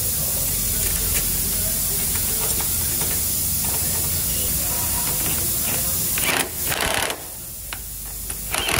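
Steady air hiss with a low hum underneath. A pneumatic impact wrench then runs in two short bursts, about six seconds in and again near the end, tightening a rear-suspension bolt after an alignment shim has gone in.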